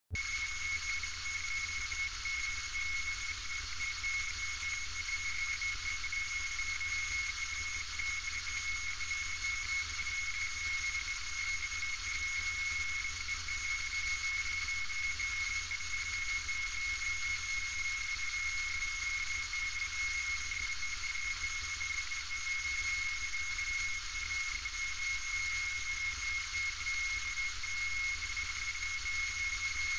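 Steady cabin noise inside a single-engine light aircraft in flight: an even hiss of engine and airflow with a thin, steady high whine running through it and a low rumble underneath.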